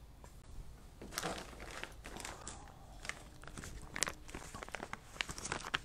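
Paper rustling and crinkling, faint, with scattered small crisp ticks, as paper is handled.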